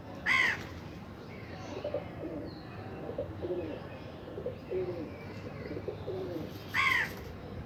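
Birds calling: soft, low, repeated cooing typical of pigeons. Another bird gives two much louder, short calls, one about half a second in and one near the end.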